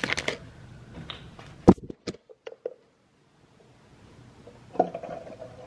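Bottled water being poured into a Bartesian cocktail maker's plastic water reservoir. The plastic bottle and reservoir give clicks and a sharp knock about two seconds in, and a sustained pouring sound starts near the end.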